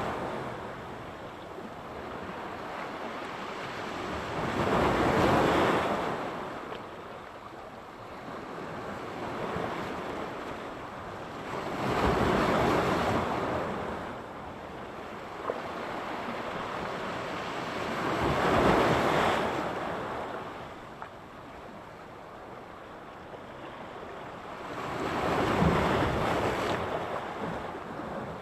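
Sea surf: waves breaking and washing back, four swells about six to seven seconds apart.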